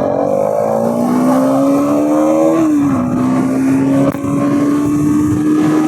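Bajaj Pulsar NS200's single-cylinder engine pulling under load while riding, its note rising steadily, then dropping sharply about three seconds in at an upshift and holding level at cruising speed, with wind rushing past.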